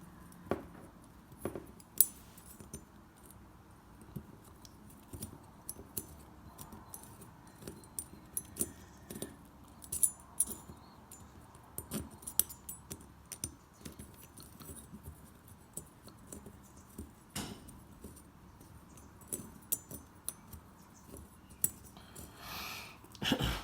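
Small metal parts and tools clicking and clinking at irregular intervals as the screws and heat-sink head are worked off a small RC nitro engine. A longer scrape or rustle comes near the end.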